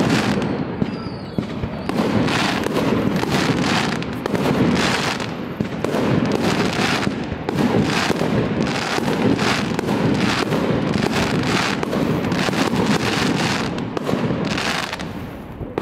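Fireworks display: aerial shells bursting overhead one after another in a dense, near-continuous barrage of bangs.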